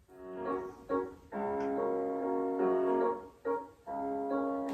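Piano playing ballet class music: a couple of short chords, then longer held chords with brief breaks between them.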